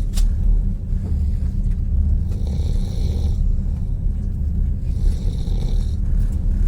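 A sleeping passenger snoring in a passenger train's sleeping carriage, two raspy snoring breaths about two and a half seconds apart, over the steady low rumble of the carriage. A brief sharp click comes right at the start.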